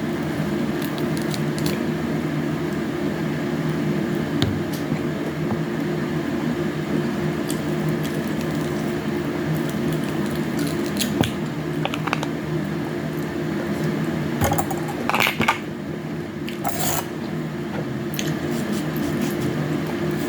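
Soft squishing and small clicks of someone eating a juicy honey orange close to the microphone, over a steady low hum. A few louder handling noises come about fifteen and seventeen seconds in.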